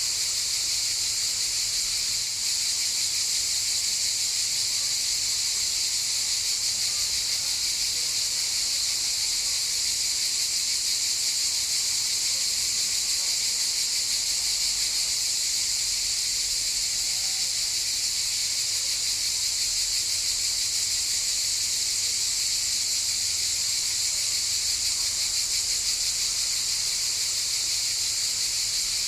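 Cicadas chorusing: a steady, dense, high-pitched buzz that holds without a break.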